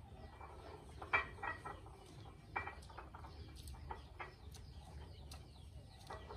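Faint, scattered short bird calls, with a couple of louder ones about a second in and midway, over a low background haze.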